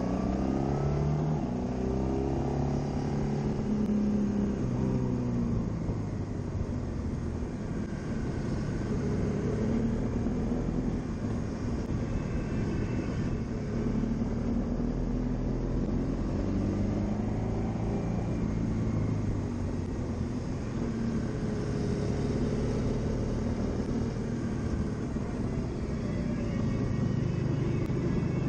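Motorcycle engine heard from the riding bike, most likely a Honda VFR800X Crossrunner's V4, under a steady rush of wind. The engine pitch rises and falls several times as the bike accelerates and eases off through bends.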